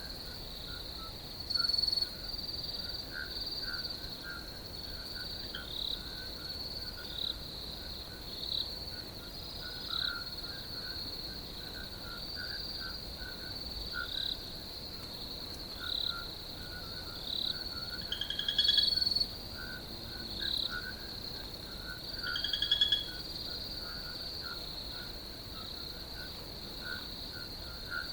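Night chorus of crickets trilling steadily at a high pitch, with many shorter, lower chirping calls scattered through it. A few louder pulsed trills stand out about two seconds in, around two-thirds of the way through, and again a little later.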